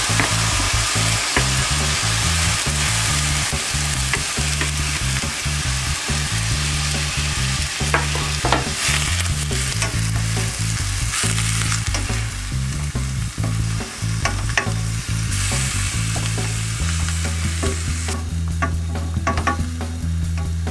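Minced meat and chopped onions sizzling in hot oil in a frying pan as they are stirred, with occasional clicks and scrapes of the utensil against the pan.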